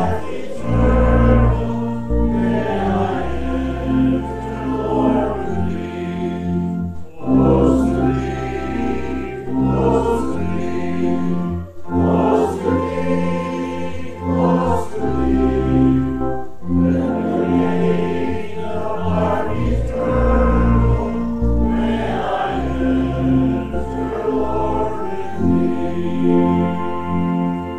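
A hymn sung by many voices with keyboard accompaniment over held low bass notes, in phrases of about two seconds. The last phrase ends near the end.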